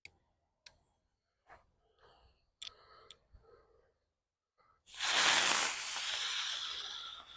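Crackling ground bloom flower firework igniting about five seconds in: a sudden loud hiss of spraying sparks that fades over the next two seconds. A few faint clicks and scrapes come before it.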